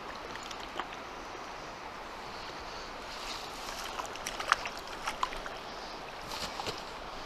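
Shallow river flowing steadily, with a run of splashes and sharp clicks from about three seconds in as a small hooked trout thrashes at the surface and is scooped into a landing net; the loudest splash comes about halfway through.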